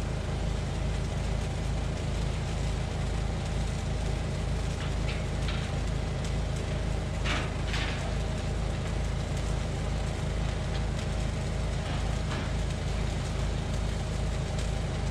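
An engine running steadily at constant speed, a low even hum, with a few brief sharp knocks over it.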